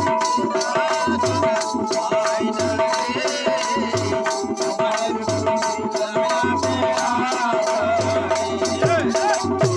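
Live folk music from a small group: a steady drone with a wavering melody line over an even rattle-like percussion of about four strokes a second, hand claps, and a low drum beat.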